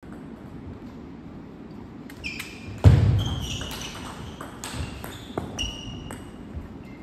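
Table tennis balls clicking off table and paddles, about eight sharp pops each with a short ringing ping, echoing in a large hall. A heavy thump just before three seconds in is the loudest sound.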